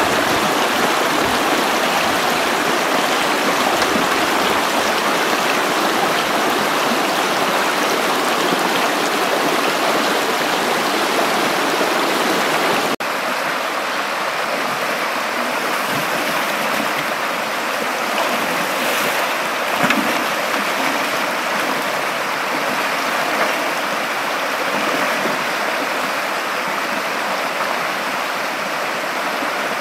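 Shallow river rapids rushing over rocks: a steady, dense noise of churning water, a little quieter after a shot change about halfway through.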